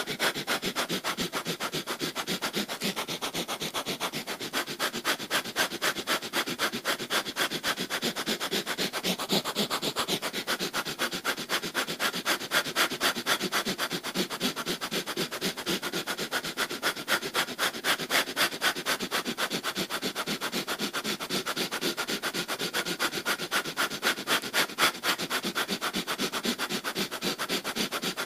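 Breath of fire: fast, forceful breathing in and out through the nose in an even, unbroken rhythm.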